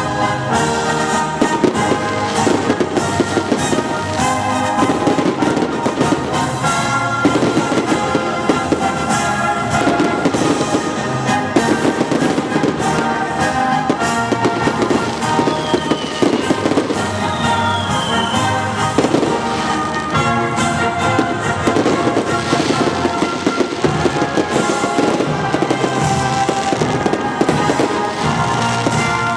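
Fireworks display: shells bursting and crackling in quick succession over music that plays throughout.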